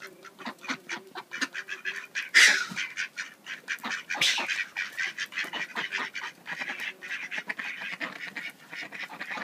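Mallard ducks quacking: a run of short, rapid calls, with two louder quacks about two and a half and four seconds in.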